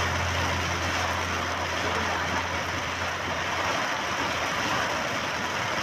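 Car driving on a wet road in rain, heard from inside the cabin: a steady hiss of tyres and rain, with a low hum that fades over the first couple of seconds.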